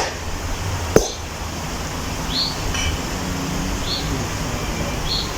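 A wild bird giving three short, high chirps a second or so apart, over a steady low rush of background noise. A sharp click about a second in is the loudest thing.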